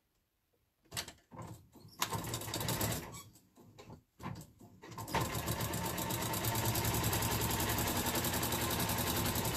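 Electric sewing machine stitching through fabric. A few clicks and a short spurt of stitches come first, then from about five seconds in it runs steadily at a fast, even stitch rhythm.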